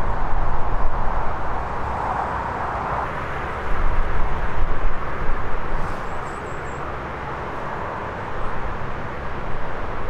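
Wind gusting on the microphone, a rumble that swells and drops, over a steady rushing noise in the open air.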